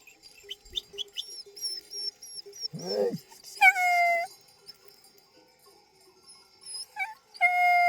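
Drawn-out, high-pitched animal cries: a short lower call about three seconds in, then a long cry, and another starting near the end.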